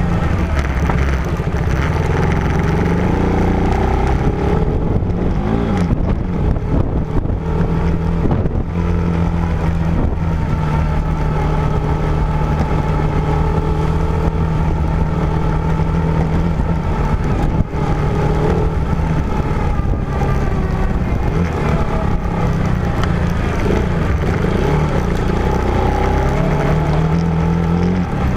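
A vehicle's engine running as it is driven off-road, its pitch holding steady for stretches and rising and falling with the throttle in places, over a constant rumble of road and wind noise.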